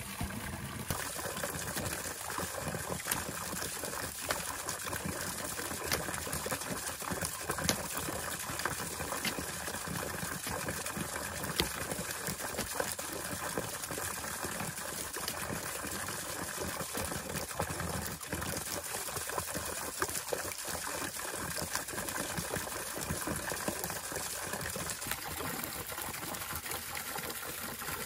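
Water trickling and splashing steadily, with many small splashes running on throughout.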